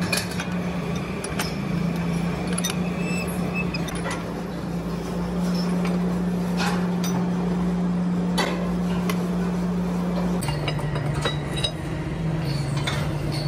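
Lathe's electric motor and belt drive running with a steady hum that drops slightly in pitch about ten seconds in, under scattered metal-on-metal clinks and knocks from tools and clamps on the cast-iron work.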